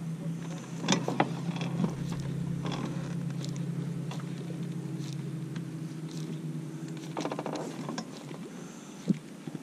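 Steady low hum of a bow-mounted electric trolling motor on a bass boat, fading away near the end. Over it come handling noises from a baitcasting rod and reel: a couple of sharp clicks about a second in and a short run of rapid clicks a little before the end.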